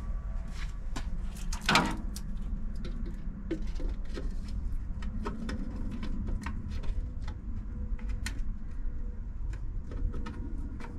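Footsteps, then scattered light clicks and knocks of parts being handled at the open grille of an old pickup, over a steady low wind rumble on the microphone. One short, louder squeak comes about two seconds in.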